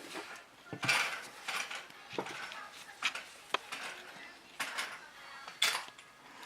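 Small metal engine parts and hand tools clinking, clicking and scraping against each other at irregular intervals, with a sharp click about halfway through and a louder knock near the end.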